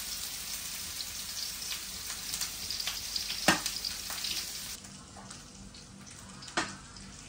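Garlic, ginger and lemongrass sizzling in hot oil in a pan, with a spatula clicking and scraping against it as it is stirred. One sharper knock comes about three and a half seconds in, and the sizzle drops a little in level just before five seconds.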